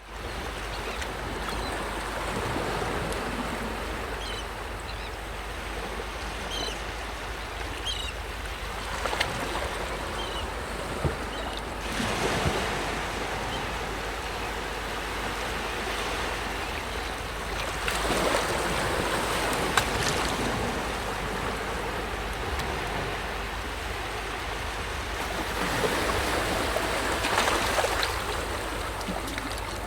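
Sea waves washing onto the shore in repeated surges, with a few faint seagull calls in the first half.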